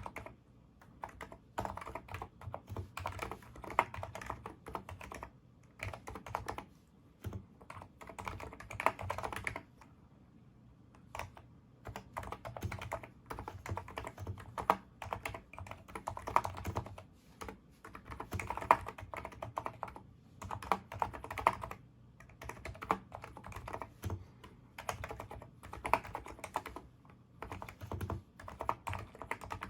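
Typing on a NIZ Micro82 electrostatic capacitive keyboard with 35 g switches: runs of rapid keystrokes in bursts, broken by short pauses, with a longer pause about ten seconds in.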